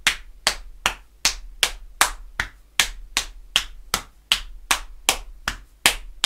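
Body-percussion single paradiddle (right, left, right, right, left, right, left, left): open-hand slaps on the thighs and knees, with the first stroke of each group played on the opposite shoulder. An even, steady beat of sharp slaps, a little under three a second.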